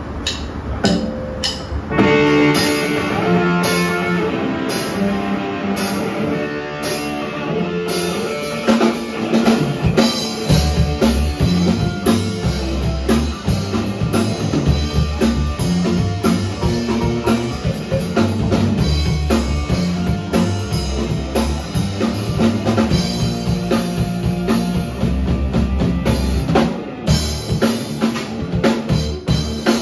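Live rock band playing an instrumental passage on electric guitar, electric bass and drum kit, in a progressive, math-rock style. Guitar and cymbal strokes carry the sparser opening, and the bass and full drums come in about ten seconds in. The band drops back briefly near the end.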